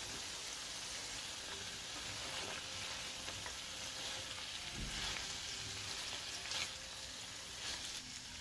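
Chickpeas and cauliflower sizzling in a berbere and tomato-paste sauce in a nonstick frying pan while a spoon stirs them, with light scrapes and a soft knock about five seconds in.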